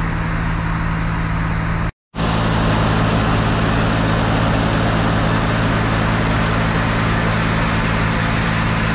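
Shelled corn pouring from a grain truck's gate into an auger hopper, a steady rushing hiss over the steady hum of an engine. The sound cuts out briefly about two seconds in.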